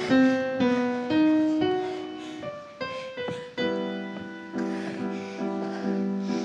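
Piano playing a slow line of single notes, then, from about halfway, a chord struck again and again about twice a second.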